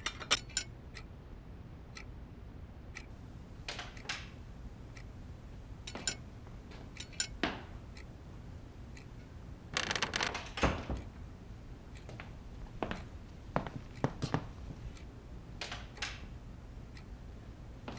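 Scattered small knocks, clicks and clatters of objects being handled, with a denser burst of clatter about ten seconds in, over a low steady hum.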